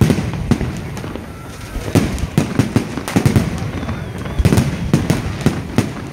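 Aerial firework shells bursting overhead, a string of sharp bangs at uneven intervals over a continuous low rumble, coming thicker and faster through the second half.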